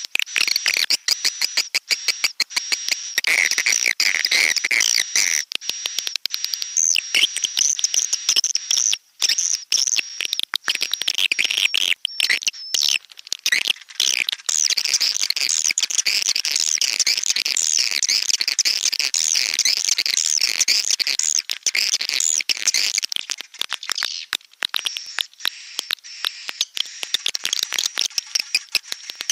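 Edible-nest swiftlet calls on a lure sound track: dense, rapid chittering and clicking twitters, with a steady high tone running under them for about the first half and the twittering growing thicker after that.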